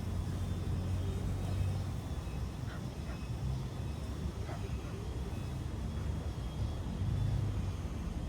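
Steady low rumble of distant road traffic under an open-air pond ambience, with a few faint short calls in the middle.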